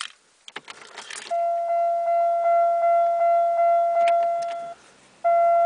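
Car keys rattling at the ignition, then the dashboard warning chime dinging steadily at one pitch, about two to three dings a second; it stops for half a second about five seconds in and starts again, before the engine is cranked.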